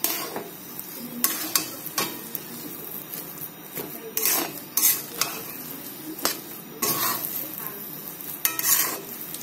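Mashed-potato filling being stirred and scraped around a frying pan, with a quiet sizzle of oil; the utensil scrapes against the pan at irregular moments. The filling is being cooked down until fairly dry.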